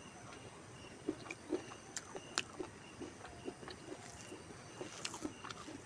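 A person chewing food: soft, irregular mouth sounds and small clicks, several a second.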